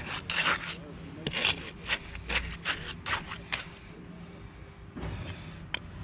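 Margin trowel scraping and working wet concrete along the edge of a steel plate set in a form, in a quick series of rasping strokes that die away about three and a half seconds in.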